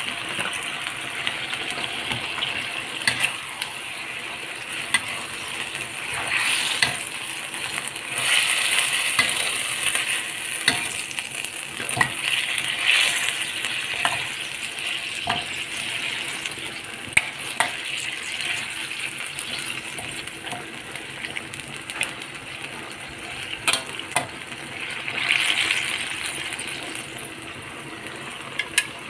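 Chicken pieces sizzling in curry sauce in a wok, stirred with a spatula that clicks and scrapes against the pan again and again.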